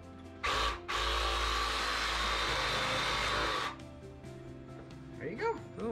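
Ryobi reciprocating saw cutting through a rack of pork ribs, bone included: a short burst about half a second in, then a steady run of about three seconds that stops sharply. Background music plays under it.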